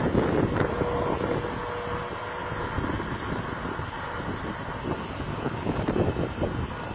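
Kenworth truck-and-trailer's diesel engine running under load as the rig moves slowly off, with wind buffeting the microphone. The engine sound swells a little near the end.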